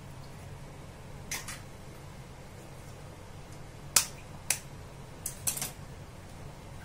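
Raw eggs being cracked against the rim of a steel pan: a handful of short, sharp taps, the loudest about four seconds in, with a couple more close together near the end.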